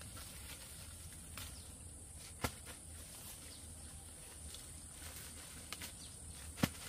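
A few sharp, short clicks or snaps, the loudest about two and a half seconds in and again near the end, over a steady high hiss.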